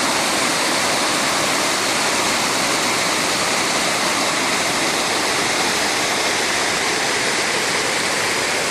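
Waterfall pouring, a loud, steady, unbroken rush of falling water.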